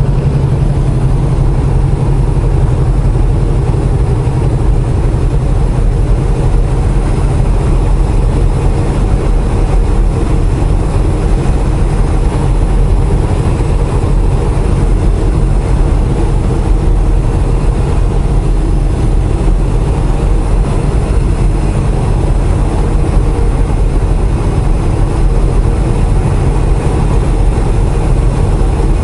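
Semi-truck's diesel engine and road noise heard inside the cab at highway speed: a steady low drone that does not change.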